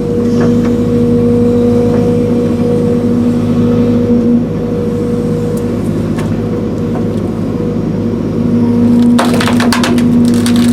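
Link-Belt 210 excavator's diesel engine running steadily under work, with a higher steady tone that comes in twice, for several seconds each time. Near the end, wood cracks and splinters in a quick run of snaps as the tree's roots are torn out.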